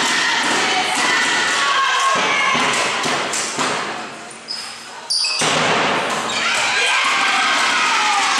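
Volleyball rally in an echoing sports hall: the ball thuds off hands and floor while players and spectators shout. The noise dips briefly about four to five seconds in, then the shouting and cheering swell again after the point is won.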